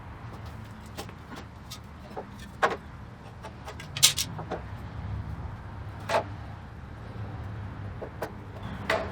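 A few separate knocks and clicks of wood and a mitre saw being handled while a cut is lined up, the loudest about four seconds in, over a steady low hum.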